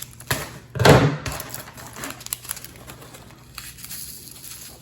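Plastic film and packaging crinkling, with small clicks as the diamond painting kit is handled, and one loud low thump about a second in.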